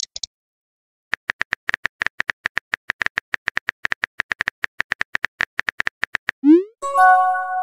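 Phone-keyboard typing clicks from a texting-story app, rapid and even as a message is typed. Near the end they stop, and a short rising swoosh and then a chiming tone sound as the message is sent.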